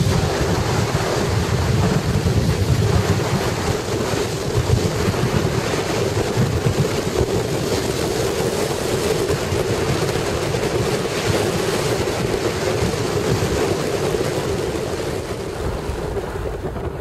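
Steady road noise of a moving car heard from inside, with wind rumbling on the microphone.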